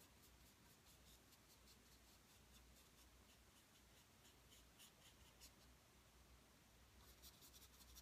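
Faint, quick scratchy strokes of a paintbrush on the painting surface, coming in a denser flurry near the end.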